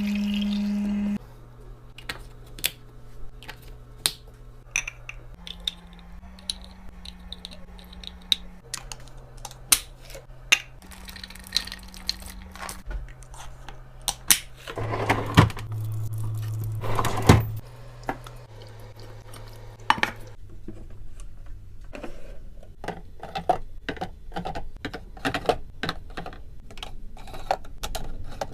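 Items being handled and set into a mini fridge: a string of light clicks and clacks from plastic and glass containers. A louder rustle comes about fifteen seconds in and lasts a couple of seconds, and near the end there is a quick flurry of tapping clicks.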